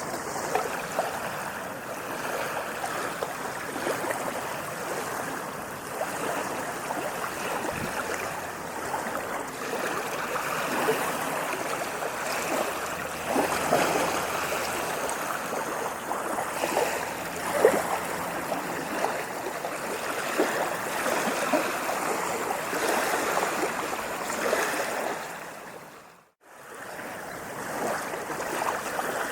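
Sea waves washing and lapping: a continuous rush of water with small splashes. It fades out briefly to silence and back near the end.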